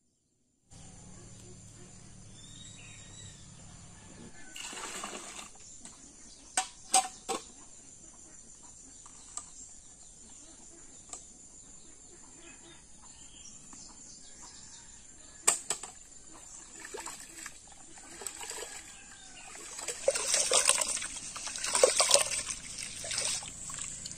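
Rice being washed by hand in a steel pot of water: swishing and sloshing, loudest over the last few seconds. Earlier come a few sharp knocks.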